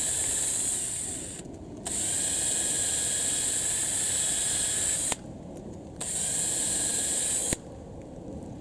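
Cordless DeWalt drill boring pilot holes into the trunk of a young peach tree, its motor giving a steady high whine. It runs in three stretches with short pauses between them and stops near the end.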